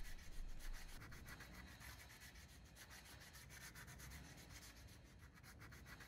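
Sandpaper rubbed by hand over a rusty spot on a galvanized steel anchor, faint quick back-and-forth strokes: sanding the rust off to prepare the surface for zinc soldering.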